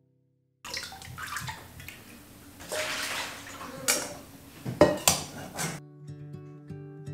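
Water draining and splashing out of soaked white rice held in a stainless-steel strainer over a metal bowl, with a few sharp metal-on-metal clinks as the strainer and bowl knock together.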